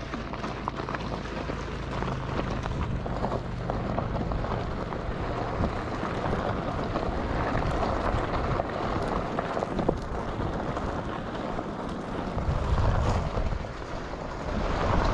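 Onewheel's single tyre rolling over desert gravel and dirt, a continuous crunching hiss, with wind buffeting the camera microphone.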